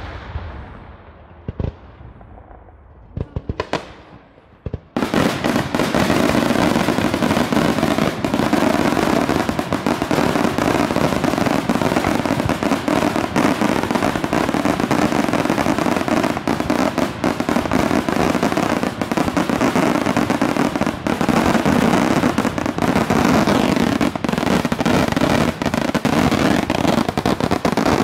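Daytime fireworks: a few separate sharp bangs in the first seconds, then from about five seconds in a dense, unbroken barrage of firecracker reports that does not let up.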